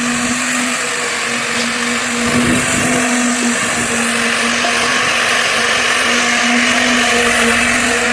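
A small motor running steadily: a constant hum under a loud hiss that barely changes.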